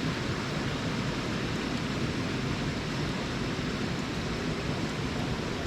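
Steady rush of flowing water from a hot-spring river stream.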